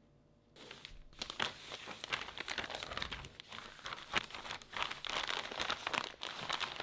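Thin plastic shopping bag crinkling as hands fold it up and press it flat, a dense run of crackles starting about half a second in.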